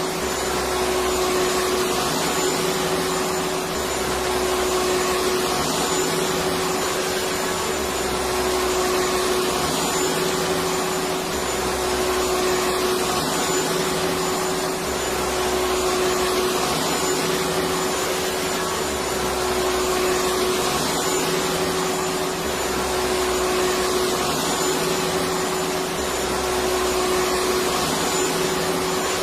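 Electric vacuum cleaner running steadily, a continuous rushing whoosh over an unchanging motor hum.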